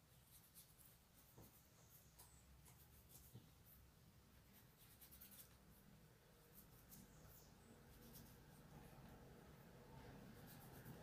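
Very faint scratching and rubbing as yellow gel pastel is worked over a small craft-foam cut-out to shade it, heard over near-silent room tone.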